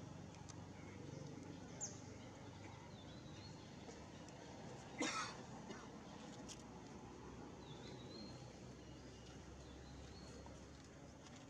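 Faint outdoor ambience with a few soft bird chirps. A short sharp noise comes about five seconds in.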